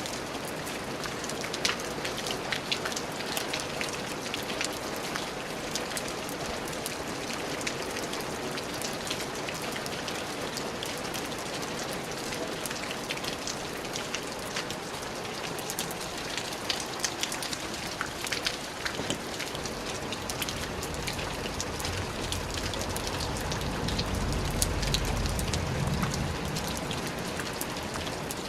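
Steady rain falling, with many fine drop patters over an even hiss. About two-thirds of the way through, a low rumble swells up under the rain and then eases off near the end.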